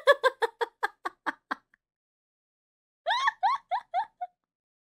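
A woman laughing: a quick run of giggles that trails off, then after a pause a second, short, higher-pitched burst of giggles.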